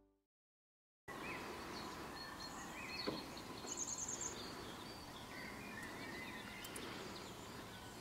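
Quiet outdoor lakeside ambience with a few faint, scattered bird chirps and calls over a low background hiss, starting about a second in after a brief silence.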